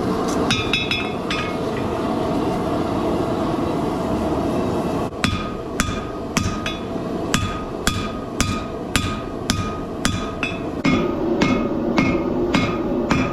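Hand hammer forging a Damascus steel billet on an anvil: ringing metal-on-metal blows, a quick flurry at the start, then a steady rhythm of about two blows a second from about five seconds in, over a steady low background rush.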